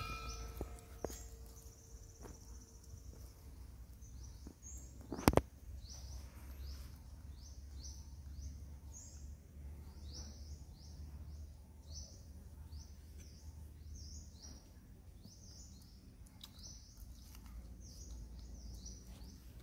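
Outdoor ambience: a bird chirping repeatedly in short high notes, about two a second, over a low steady rumble. A single sharp click about five seconds in.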